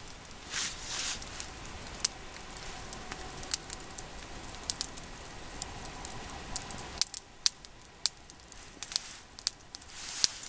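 Wood campfire burning with colour-changing flames, crackling with sharp, irregular pops throughout. A steady hiss under the crackle drops away about seven seconds in.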